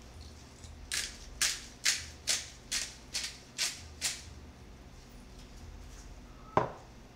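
A salt and pepper shaker shaken out in about eight quick rattling shakes, roughly two a second, as seasoning goes into raw meatball mixture. A single sharp knock follows near the end.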